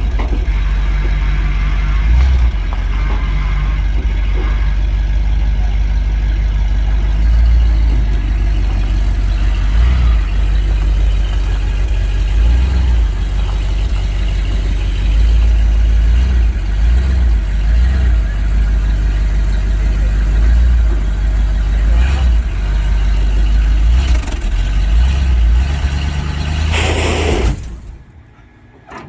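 1976 Dodge D200 pickup's V8 engine running with a heavy, uneven low rumble. Near the end there is a short loud noisy surge, then the sound cuts off abruptly.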